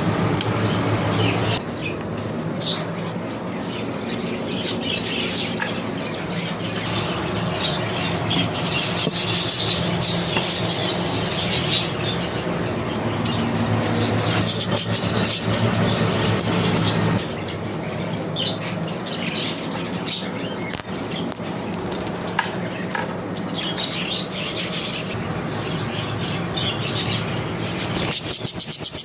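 Many budgerigars chirping and chattering together in a continuous high twittering, with a low steady hum underneath at times.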